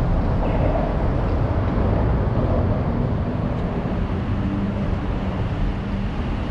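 Steady low rumble of city street traffic, with a faint engine hum coming in about halfway through.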